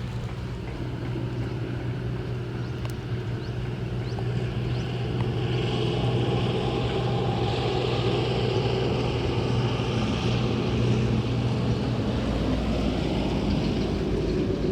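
A motor running steadily with a constant hum, growing louder over the first few seconds and then holding.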